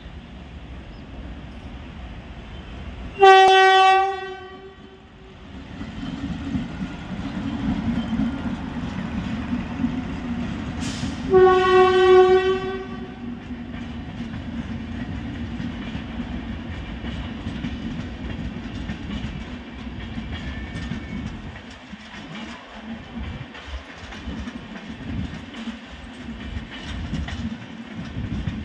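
An Indian Railways express train's electric locomotive sounds its horn twice: a short blast about three seconds in, then a longer blast of about a second and a half some eight seconds later. Between and after the blasts comes the steady rumble and clickety-clack of the train's coaches rolling over the rails.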